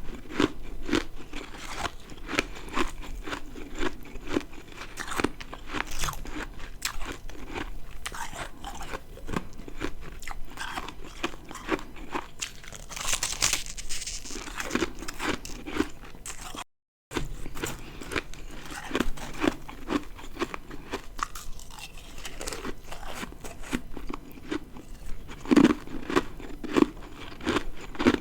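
Ice being bitten and chewed close to the microphone: a dense run of sharp, irregular crunches with chewing between them. There is a hissier stretch near the middle and a brief cut to silence a little past halfway.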